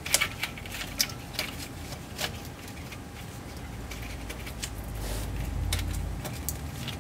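Scattered light clicks and rattles of a hand handling plastic wiring connectors and loom under a truck, with a low rumble swelling about five seconds in.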